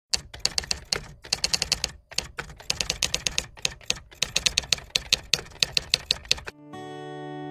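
Typewriter typing sound effect: rapid runs of sharp key clicks broken by short pauses, paced with text typing onto the screen. About six and a half seconds in the clicks stop and guitar music starts with sustained notes.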